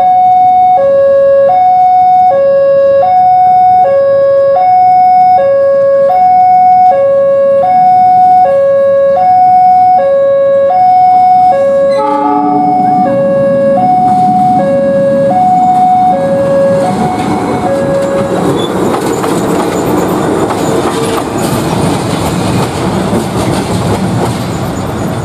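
Two-note electronic warning alarm, typical of a level crossing, alternating steadily between a low and a high note about every three-quarters of a second and dying away about 18 s in. Meanwhile the running and rail noise of a CC206 diesel-electric locomotive moving past grows until it is the loudest sound.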